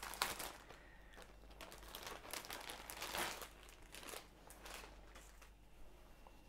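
Clear plastic packaging bag crinkling and rustling as a cotton corset liner is pulled out of it. The rustling is busiest in the first three seconds or so and thins out toward the end.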